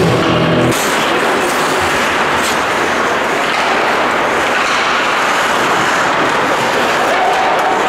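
Background music cuts off under a second in, giving way to the steady noisy wash of a live ice hockey game in the rink, with a few sharp knocks in the first couple of seconds.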